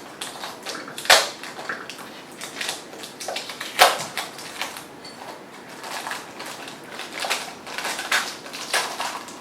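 Cardboard box and packaging being handled: a run of rustles and small knocks, with two sharp, loud knocks, about a second in and just before four seconds.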